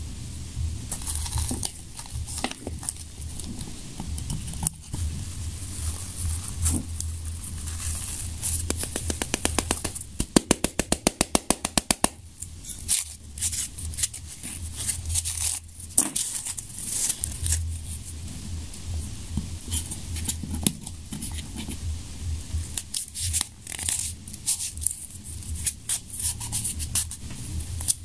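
Hands pasting glued paper strips onto a 3-inch firework shell: paper rustling, scraping and crinkling, with a quick run of ticks about ten seconds in.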